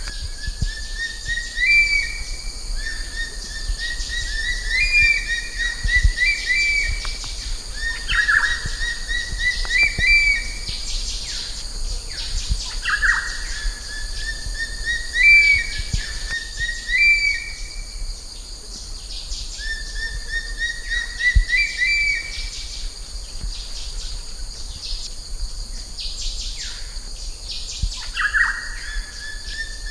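Changeable hawk-eagle calling: a shrill whistle that rises slightly and ends on a higher note, repeated about every one and a half to two seconds, with shorter falling whistles in between.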